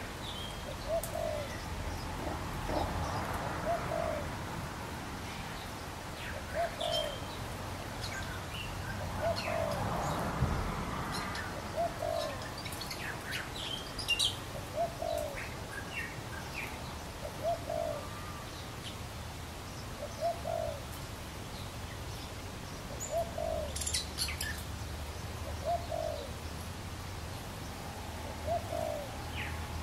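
Birds calling in a garden: a low, short cooing note repeats about every three seconds, with brief high chirps scattered between.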